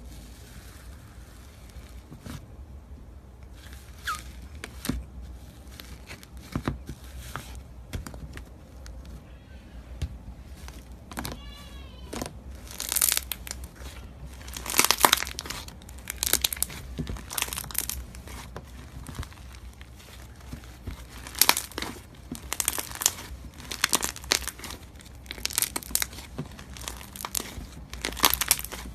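Slime being squished and pressed by hand, giving irregular crackling and popping sounds that come thicker and louder after the first several seconds.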